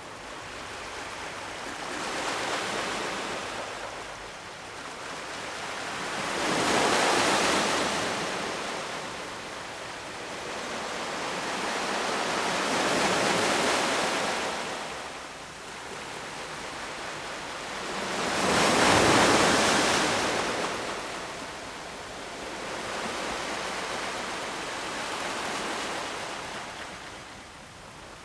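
Ocean waves breaking on the shore: a rushing wash that swells and ebbs about every five to six seconds, five waves in all, the one about two-thirds of the way through the loudest.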